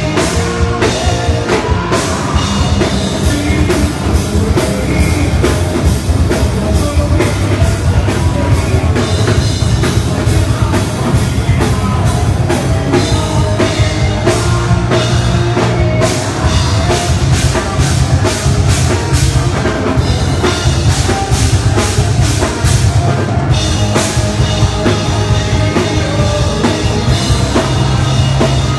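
Live rock band playing loud heavy rock, with the drum kit and bass to the fore and steady drum hits throughout.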